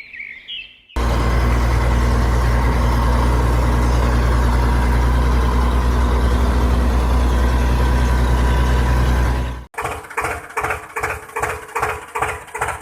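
Birdsong, then suddenly a loud diesel engine sound running steadily at idle, which cuts off abruptly near the end. It is followed by a rhythmic chugging at about three beats a second.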